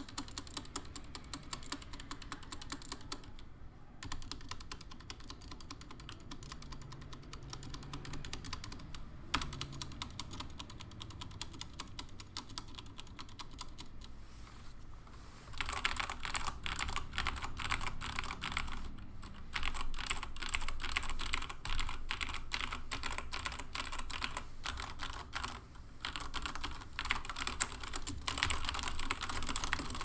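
Fast, continuous typing on an MK870 custom mechanical keyboard, with dense keystroke clicks broken by a few short pauses. The typing gets noticeably louder about halfway through.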